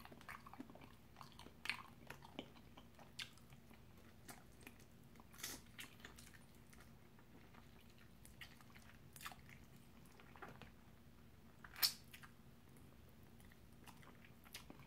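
Faint chewing and biting as buffalo chicken wings are eaten and the meat is pulled off the bone, with scattered short wet mouth clicks; the loudest comes about twelve seconds in.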